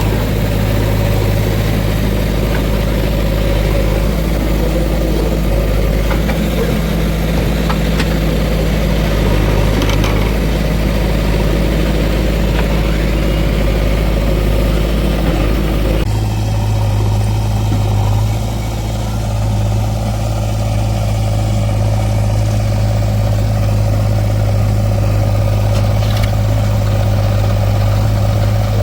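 Diesel engine of heavy machinery running steadily with a low hum. The engine note changes abruptly about halfway through.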